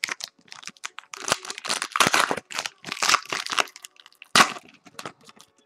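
Foil trading-card pack wrapper crinkling and tearing as it is handled and ripped open by hand, with one sharper crack about four and a half seconds in.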